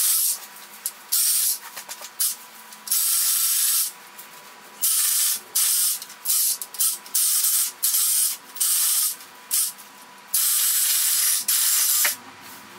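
DeWalt cordless reciprocating saw cutting through Christmas tree branches in about a dozen short bursts with brief pauses between, two of them held for about a second.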